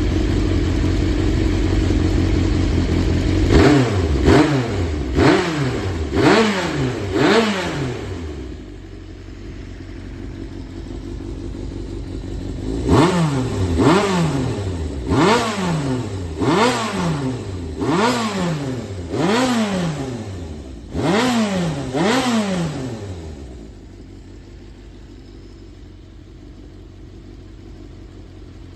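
Honda CBX550F inline-four engine idling, then blipped by the throttle in quick rises and falls, about five times, idling, then about eight more times before settling back to a quieter idle. It is a running check of a used engine, which the seller says shows no abnormal noise.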